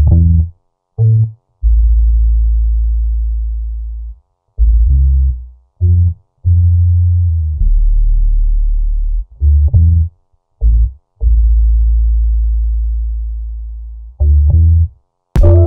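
Background music: deep bass notes, each held and slowly fading, with short breaks and brief higher notes between them. A brighter chord comes in right at the end.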